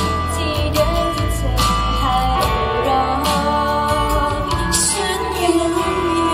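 Female vocalist singing live into a handheld microphone over a pop backing track with a steady bass line.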